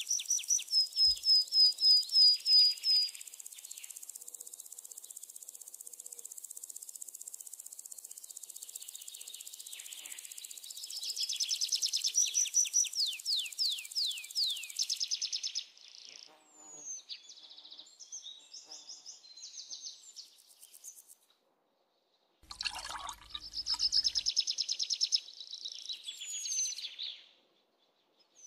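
Songbird calling in bursts: runs of short, high chirps that fall in pitch, about three a second, with quieter scattered chirps and twitters between them, over a steady hiss for the first half.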